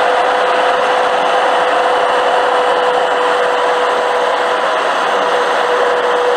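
Steady highway road noise right beside a moving semi truck: tyre and wind roar with a steady droning hum.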